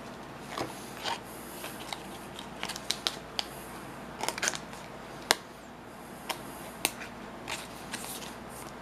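Plastic card sleeves and trading cards being handled as cards are slid into the sleeves: irregular soft rustling with a dozen or so sharp little clicks.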